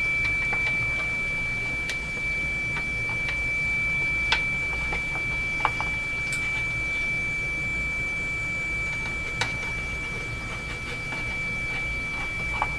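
Hammarlund HQ-100A receiver's speaker giving a steady, high-pitched heterodyne whistle, a single tone, with a few light clicks along the way. The whistle is the injected 455 kHz test signal beating against the set's beat frequency oscillator, which has been left switched on.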